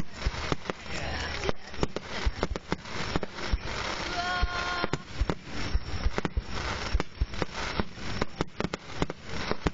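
Fireworks display: aerial shells bursting in quick succession, with many sharp bangs and crackling all through. A brief steady tone sounds about halfway through.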